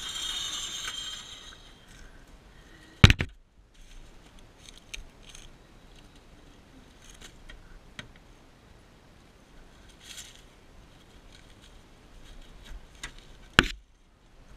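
A John Deere L110 riding mower's engine dies away in the first second or two. Then come light crackling and scraping as sticks and dry leaves are pulled out from under the mower, with two sharp clicks, one about three seconds in and one near the end.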